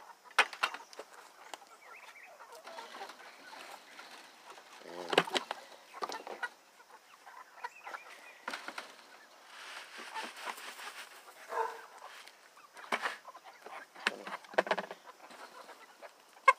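Young chickens clucking in short, scattered calls, with a few sharp knocks from the wooden lid of a chicken tractor being lifted.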